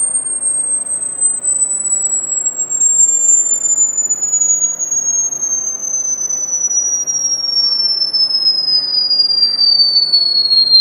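Hearing-test tone for high-pitched sounds: a single pure, very high whistle-like tone gliding steadily lower in pitch.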